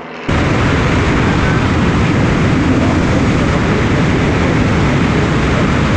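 Loud, steady rush of airflow and engine noise picked up by an action camera mounted on the outside of a light single-engine propeller plane in flight. It cuts in suddenly just after the start.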